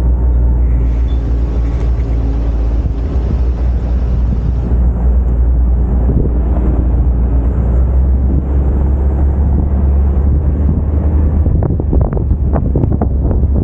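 UTV driving along, its engine running under heavy wind buffeting on the microphone. A quick run of sharp taps or knocks comes near the end.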